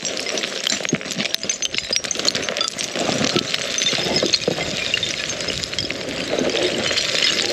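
Hiking boots skidding and crunching down a steep slope of loose shale. The flat rock plates clink and scrape underfoot in a continuous run of crunches.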